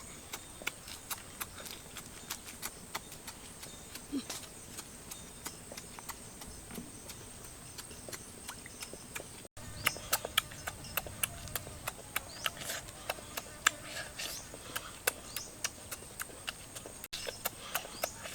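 Mouth sounds of someone eating: a string of sharp wet smacks and clicks of chewing, irregular at about two or three a second.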